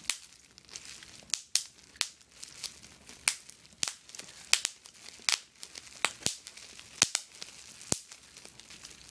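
Small-bubble plastic bubble wrap being popped between the fingers: irregular sharp pops, roughly two a second, with the plastic crinkling between them.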